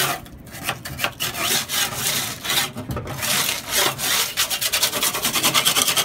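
Metal-bladed paint scraper dragged in repeated strokes across a Land Rover Series 1 door, scraping off flaking layers of old paint. The strokes become rapid and short near the end.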